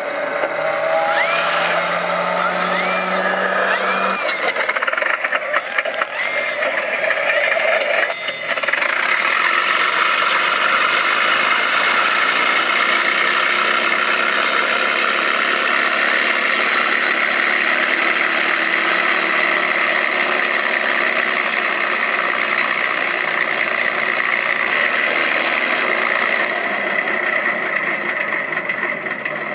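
Radio-controlled P-51 Mustang model's engine running, its pitch rising and falling several times during the first eight seconds or so, then holding steady for the rest of the time.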